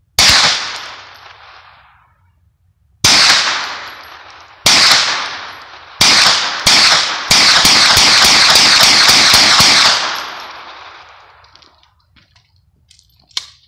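Hi-Point 995TS 9mm semi-automatic carbine firing: five single shots spaced one to three seconds apart, then a quick string of about ten shots over about three seconds. Each shot rings on for a second or two after it, and a short click comes near the end.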